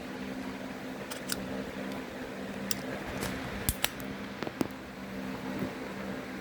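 A series of small sharp clicks and taps from equipment being handled, the loudest a quick pair a little before the four-second mark, over a steady low hum.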